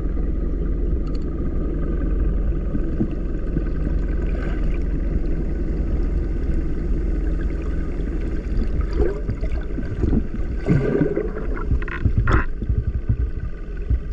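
Steady low engine rumble, with a few short higher sounds over it near the end.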